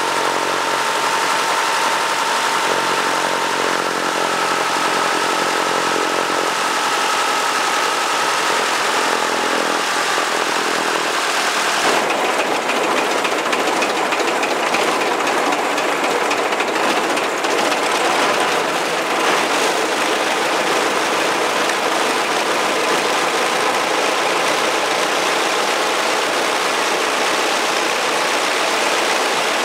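Engine of a Royal Aircraft Factory B.E.2 biplane running steadily on the ground, propeller turning, before taxi. About twelve seconds in the sound becomes rougher and noisier.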